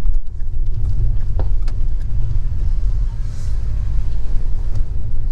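Car driving over a rough, broken road, heard from inside the cabin: a steady low rumble of tyres and engine, with a few light knocks about one and a half seconds in.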